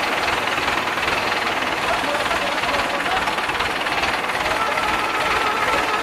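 Escorts Hydra 12 mobile crane's diesel engine running steadily with a rattling clatter. A faint high steady whine joins about four seconds in.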